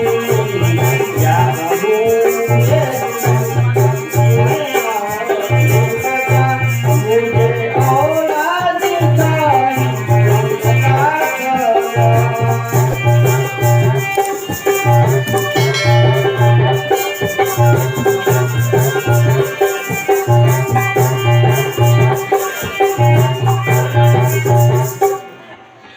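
Music: a melody over a steady rattling shaker and a repeating low beat, which stops suddenly about a second before the end.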